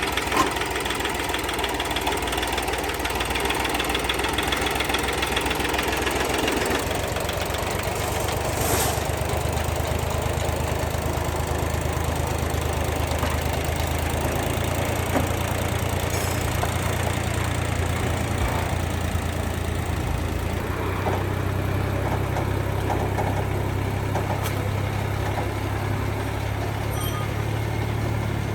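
Tractor engine running steadily, its note changing about seven seconds in, with a few brief sharp knocks over it.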